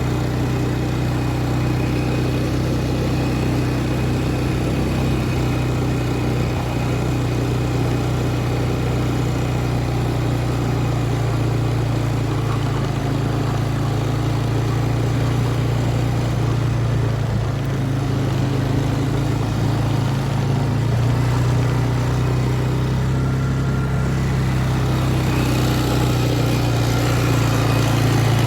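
A vehicle engine running steadily with a low, even hum, getting a little louder near the end.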